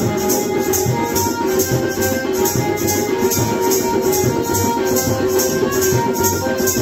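Music with a steady, even rattling beat of about three to four strokes a second over held notes.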